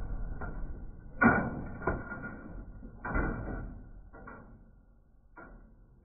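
Heavy wooden-handled hammer striking the plastic detergent-drawer housing inside a Beko washing machine. There are about six blows, roughly a second apart; the loudest lands about a second in and the later ones are weaker.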